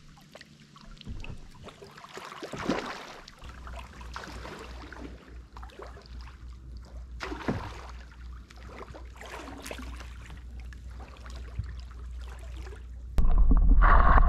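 Kayak paddles dipping and splashing in a shallow river, with water trickling around the hulls. About a second before the end, a sudden, much louder muffled rush of water is heard from underwater.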